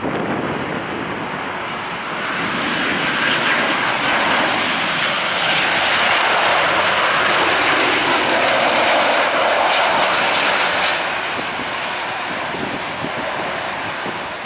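Boeing 737-800 airliner's CFM56-7B turbofan engines passing by: the jet noise swells from about two seconds in, is loudest for around five seconds, then fades away.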